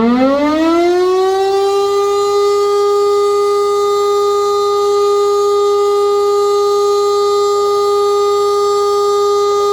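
E57 electric motor siren sounding a test alarm. Its pitch is still climbing at the start, levels off about a second and a half in, and then holds as one loud, steady tone rich in overtones.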